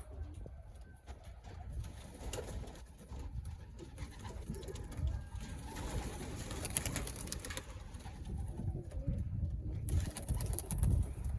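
Racing pigeons cooing softly, over a steady low rumble.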